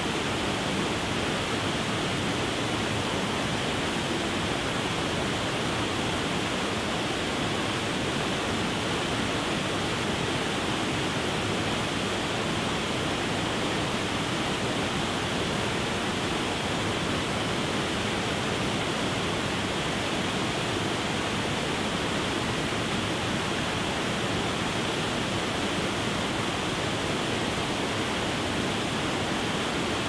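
Waterfall pouring into a rocky gorge: a steady, unbroken rushing of falling water.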